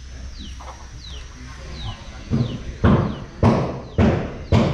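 Loud sharp knocks at a steady beat, about two a second, starting about halfway through. Before them a faint high chirp falls in pitch, repeated about twice a second, over a low hum.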